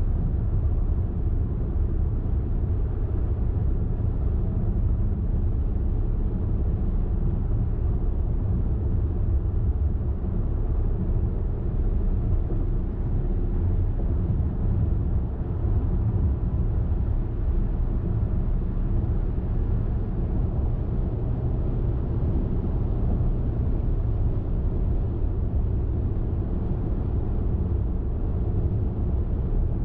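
A car driving along a highway: a steady low rumble of tyres on the road and engine.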